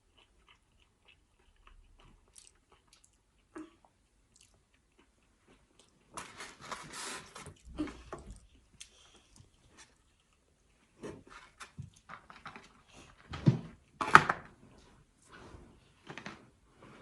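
Close-up eating sounds of fried food being bitten and chewed, crunching and crackling. Faint and sparse for the first few seconds, then runs of crunchy bites, the loudest a few seconds before the end.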